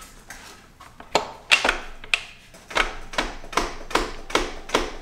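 Ratchet wrench clicking in a steady series, about two or three clicks a second, as the engine is turned over by hand toward top dead center for a valve check.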